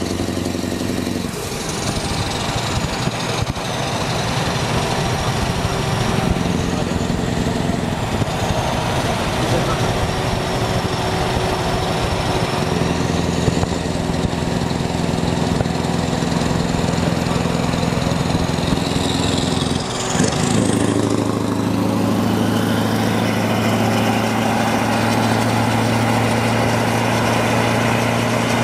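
Heavy trucks' diesel engines droning at steady highway speed, close by, with a thin high whistle gliding up and down. About two-thirds of the way through the note dips briefly and settles at a different pitch.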